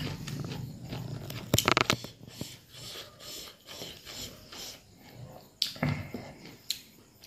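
Close-up chewing of a mouthful of dry beef and rice, a run of short wet mouth sounds. A cluster of sharp crunchy clicks comes just under two seconds in, and another sharp sound about six seconds in.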